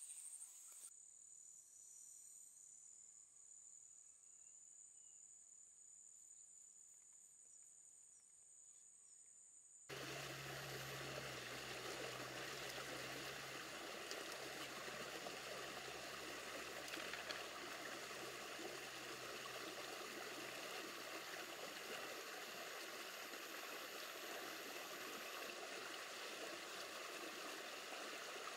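Faint insects trilling with a steady high tone, then, about ten seconds in, an abrupt switch to the steady rush of running water.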